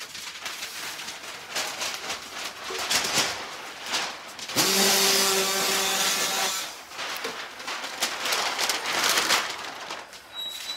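Kraft paper crinkling and rustling under golden retriever puppies moving about, in short crackly bursts. About halfway through, a loud steady hiss with a low hum lasts about two seconds.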